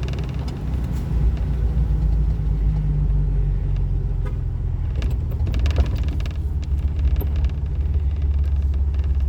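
Lifted 2004 Jeep Wrangler driving, heard from inside the cabin: a steady low rumble of engine and road noise.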